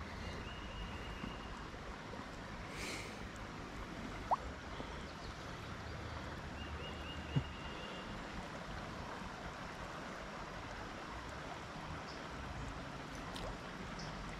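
Creek water running steadily, with two sharp clicks, about four and seven seconds in.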